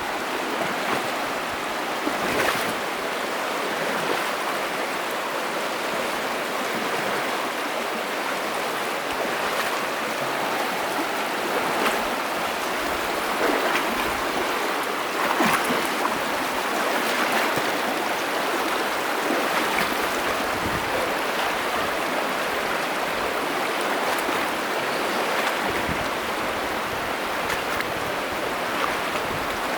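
Knee-deep water of the Virgin River rushing steadily, with the sloshing of legs wading upstream against a strong current and a louder splash now and then.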